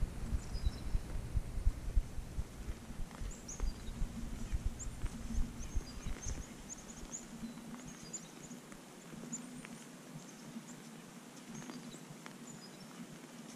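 Small birds chirping again and again in short, high calls. Wind buffets the microphone with a gusty low rumble that stops about six seconds in.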